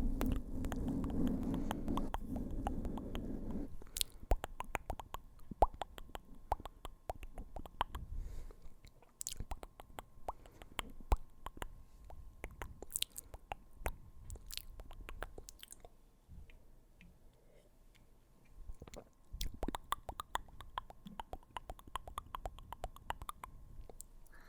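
Close-miked ASMR mouth sounds and taps on the microphone: many quick, irregular wet clicks and smacks. A dense low rumble fills the first four seconds, and the clicks thin out for a few seconds past the middle.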